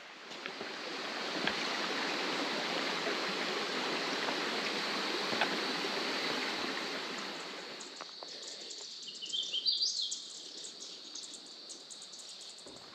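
A shallow rocky creek runs steadily over stones, its rush fading out about eight seconds in. A quieter stretch follows, with a short bird call of a few rising notes and a few soft footsteps on a dirt trail.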